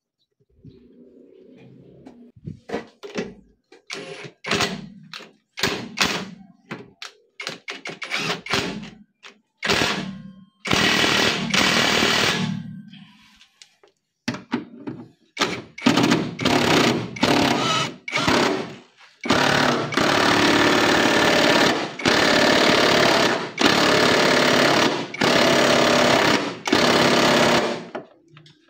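Cordless impact driver hammering as it tightens the mounting nuts of a new rear shock absorber on a Hyundai Accent. It starts in many short bursts, then runs in longer stretches of a few seconds each, broken by brief pauses.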